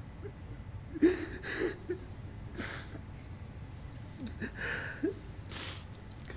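A man weeping into a microphone, with short choked sobs and gasps and two sharp sniffs, one about two and a half seconds in and one near the end.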